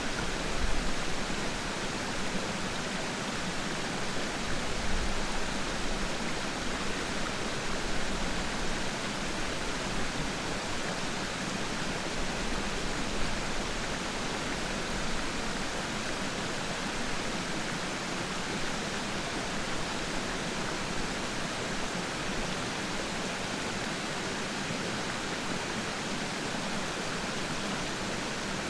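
Waterfall's water rushing in a steady, even roar, with a few brief low swells in the first half.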